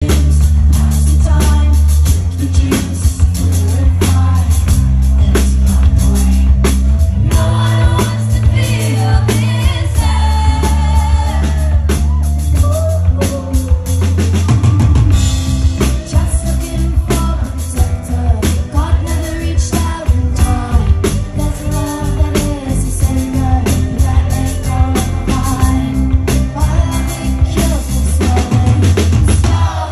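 Live rock band playing: a woman singing lead over drum kit, bass and electric guitar, loud, with a heavy low end.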